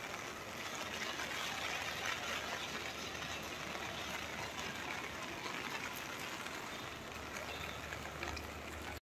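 Steady rainfall, an even hiss with no distinct drops or rhythm, cutting off abruptly just before the end.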